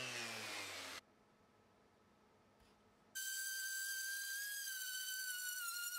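Random orbital sander spinning down, its pitch falling, cut off about a second in. After a silent gap, a random orbital sander runs from about three seconds in, giving a steady high whine while sanding an old stained board.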